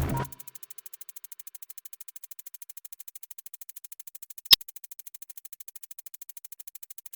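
Electronic background music with a drum-machine beat cuts off just after the start. It leaves a faint, fast, even high ticking of about ten ticks a second, and one sharp click about four and a half seconds in.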